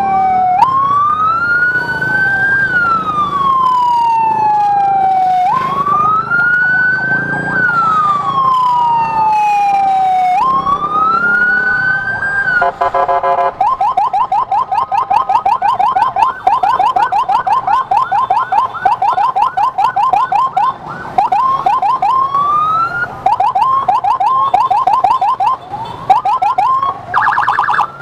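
Ambulance siren, loud, wailing in slow rising-and-falling sweeps about every five seconds, then about halfway through switching after a short buzzing blast to a rapid yelp of several sweeps a second, broken by brief pauses near the end.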